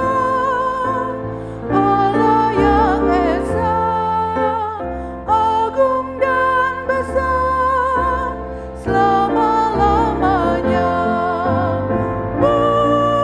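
A woman singing an Indonesian hymn with vibrato on held notes, accompanied by chords on a Roland RD-700 digital stage piano.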